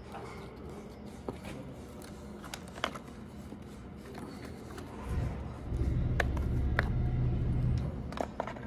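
Hand work inside a large three-phase motor stator: copper winding coils and slot insulation paper being handled, with sparse light clicks and rustling. A louder low rumble runs from about five to eight seconds in.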